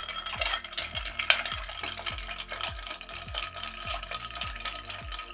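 Ice cubes clinking and swirling as a spoon stirs a cocktail with ice, a quick continuous run of small clicks and rattles: the drink is being stirred to chill and dilute it.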